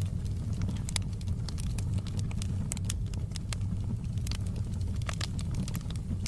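Wood fire crackling in a fireplace: many irregular sharp pops and snaps over a steady low rumble.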